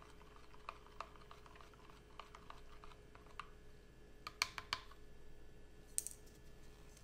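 Light plastic clicks and taps from handling a plastic pouring pitcher over clear plastic soap mold trays: a few faint ticks, a quick run of three sharper clicks a little past halfway, and one more near the end.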